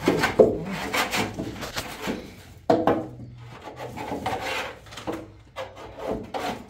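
A trowel scraping and rubbing in a basin of plaster as it is mixed, in quick irregular strokes, with a sharper scrape a little under three seconds in.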